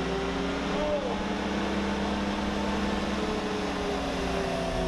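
Komatsu forklift's engine running steadily while it is driven, holding a fairly even pitch.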